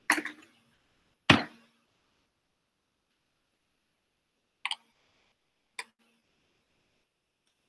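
A few sharp knocks and clicks of things being handled and set down on a lab bench: a knock at the start, the loudest about a second in, then a quick double click and a single click a second later, with near silence between them.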